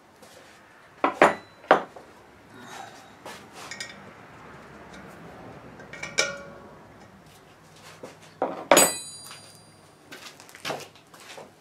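Scattered metal clinks and knocks of hand tools against a steel propane cylinder and its brass valve fitting: a few sharp knocks about a second in, another at six seconds, and a louder clank with a short metallic ring near nine seconds.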